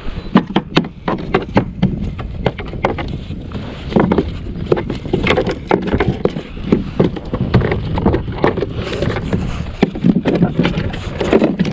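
A freshly landed javelin grunter flapping on the plastic deck of a fishing kayak: a run of irregular sharp knocks and slaps.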